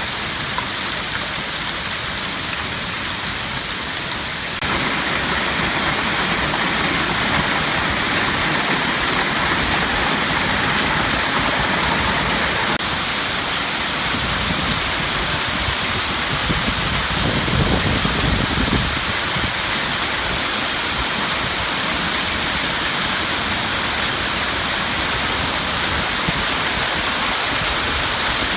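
Hail and rain pelting down hard in a dense, steady rush of noise that suddenly gets louder about four and a half seconds in.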